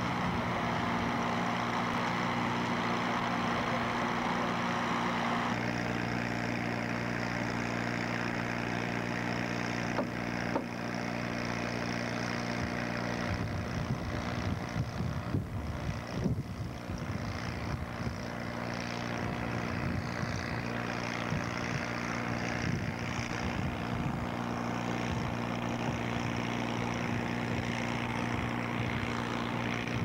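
A diesel semi-truck engine idling: a steady low drone with a constant hum that does not change pitch. Irregular knocks and rustling come in over it through the middle stretch.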